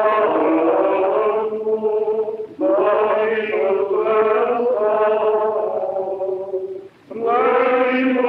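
Men's voices chanting as a choir in long held phrases, with brief breaks about two and a half and seven seconds in.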